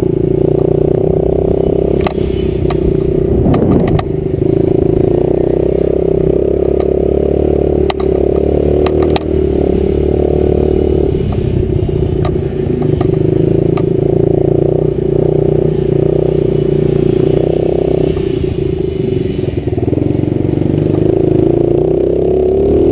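Small 65cc two-stroke dirt bike engine running hard at high, nearly steady revs, heard close up from the rider's helmet, with scattered knocks and clatter from the bike bouncing over the track.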